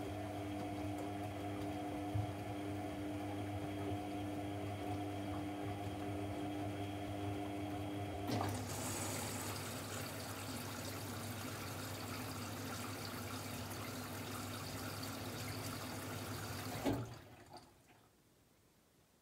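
AEG Lavamat 1400 washing machine: a steady electric hum, then after a click about eight seconds in, a rush of water through the machine that stops abruptly near the end.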